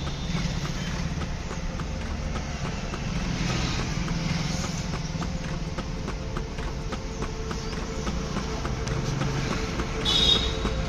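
Street traffic noise: a steady low rumble of passing vehicles with faint repeated ticking, and a brief shrill sound about ten seconds in.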